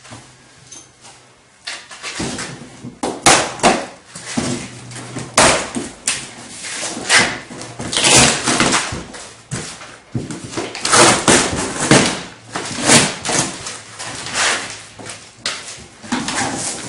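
A large cardboard bike shipping box being handled and opened by hand: irregular scraping and rustling of cardboard with knocks, starting about two seconds in.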